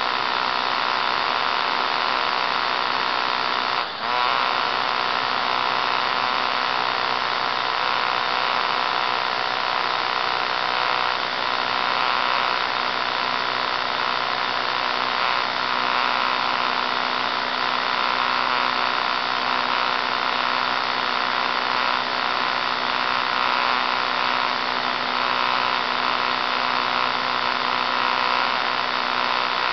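Electric motor and propeller of an E-flite Apprentice RC trainer plane running steadily in flight, heard from a camera mounted on the plane: a steady whine with a brief dip about four seconds in.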